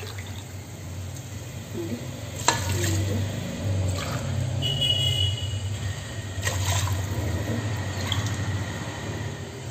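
Water poured from a metal tumbler into a pressure cooker of fried masala and vegetables, splashing as it fills the pot, with a couple of sharp knocks along the way.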